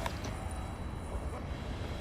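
Steady low outdoor background rumble, even in level throughout, with a few faint clicks at the very start.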